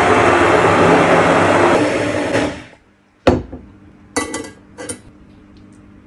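Hand-held immersion blender running in a bowl of black currants, puréeing the berries, then switching off about two and a half seconds in. A sharp knock follows, then two brief clatters.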